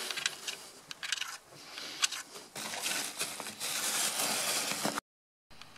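Handling noise from a hand-held camera being swung about: irregular rustling and crackling of clothing against the microphone, with sharp clicks. The sound cuts out completely for about half a second near the end.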